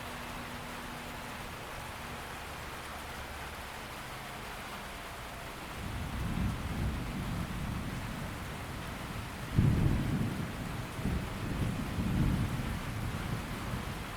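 Steady rain falling, with thunder rumbling in about six seconds in and a sharper, louder thunderclap about two-thirds of the way through, then rolling on.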